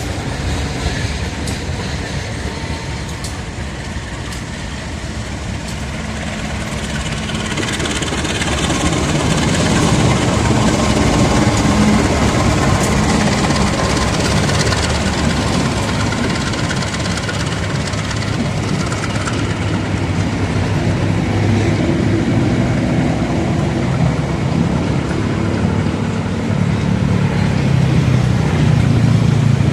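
Diesel-electric locomotive's engine running with a low, steady drone, getting louder from about a fifth of the way in and again near the end.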